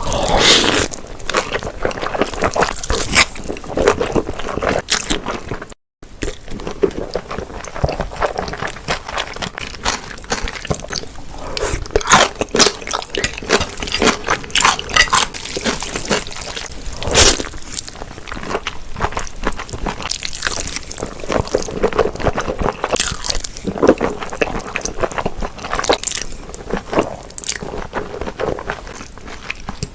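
Close-up eating sounds of spicy mixed cold noodles: wet chewing and biting with crisp crunches and squishy, liquid mouth noises. The sound breaks off for a moment about six seconds in.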